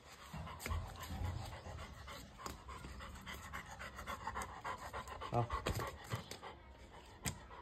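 Labrador retriever panting close by, with a few knocks and clicks.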